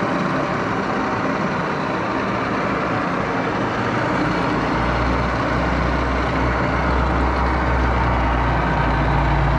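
1941 Axelson 24-speed lathe running in gear, its direct-drive motor and headstock gearing giving a steady, dense mechanical whir with a low hum that grows stronger about halfway through. The lathe is circulating its headstock oil after years idle, and the owner judges that it sounds pretty good, without the coupler rattle these lathes can have.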